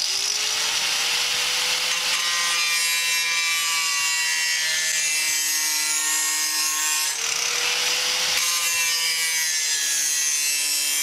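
Electric angle grinder running at full speed, its disc grinding the cutting edge of a steel lawn mower blade to sharpen it: a steady motor whine under a harsh grinding hiss. The whine rises as the grinder comes up to speed at the start.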